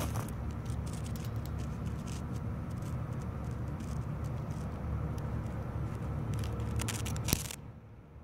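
An engine running steadily with a low rumble, overlaid by clicks and scraping from the phone being handled. About seven seconds in, a sharp knock, then the sound turns muffled.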